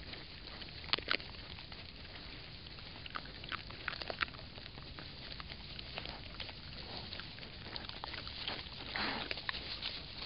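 Wild boar sow and striped piglets foraging in straw: scattered rustles and short crunching clicks, with one longer, louder sound about nine seconds in, over a steady trail-camera hiss.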